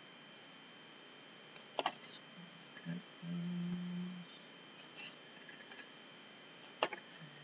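Computer mouse clicking: about ten sharp clicks, scattered irregularly, some in quick pairs. A brief low hum comes about three seconds in.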